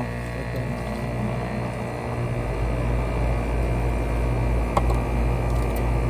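Hayward HeatPro pool heat pump, with its compressor and condenser fan motor manually forced to run, starting up: a steady low hum that swells about two seconds in, with a single click about five seconds in.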